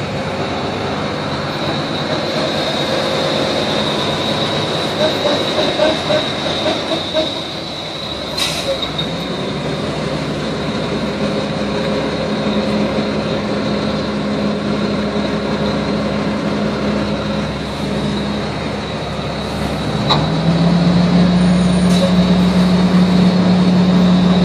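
A vehicle's motor running, with a low hum that fades and comes back twice over a steady noisy rush and a steady high whine, and a few sharp clicks.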